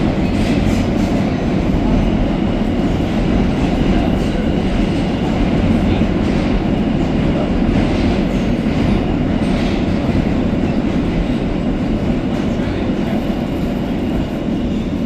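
R160A subway train running through a tunnel, heard from inside the car: a steady, loud rumble of wheels on rail, easing slightly near the end as it nears the next station.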